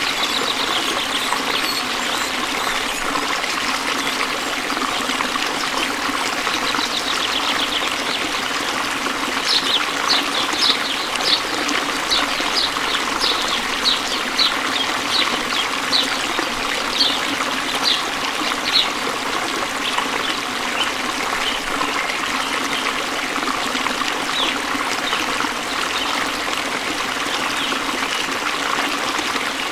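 Steady running water, like a trickling stream, with a run of short high chirps, about two a second, through the middle stretch.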